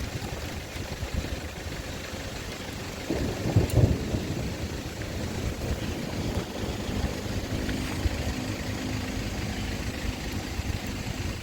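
Heavy rain with strong wind buffeting the microphone, and a louder low rumble about three to four seconds in. A faint steady engine hum comes in about halfway.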